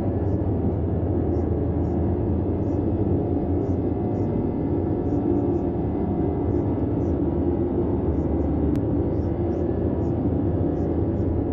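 Steady synthetic red noise: a deep, even rumble with little high end, unchanging throughout.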